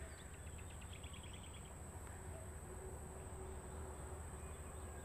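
Faint outdoor ambience: a steady high-pitched insect trill, a quick run of short chirps in the first second or two, and a low rumble underneath.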